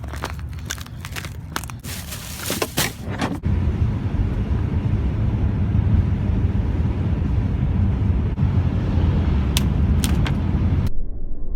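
Footsteps crunching on snow and ice for about three seconds, then the cargo van driving: a steady low road rumble, with two sharp clicks near the end.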